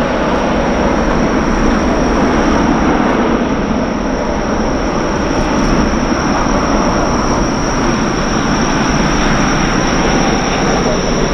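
Boeing 757 freighter's Rolls-Royce RB211 jet engines running steadily as the aircraft rolls along the ground: a loud, even roar with a steady high whine over it.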